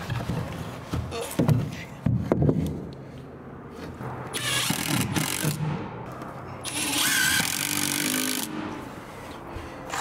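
Knocks and thumps on wooden floor framing, then two longer rustling scrapes of about a second each, the second a little after the middle.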